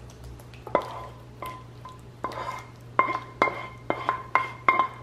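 A wooden spatula scraping and knocking cream sauce out of a nonstick skillet into a glass baking dish. There are a dozen or so sharp knocks, each with a brief metallic ring, coming closer together in the second half.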